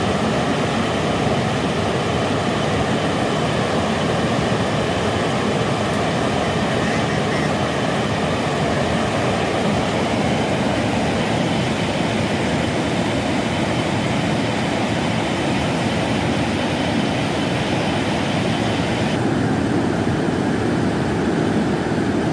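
Loud, steady rush of a swollen, fast-flowing river.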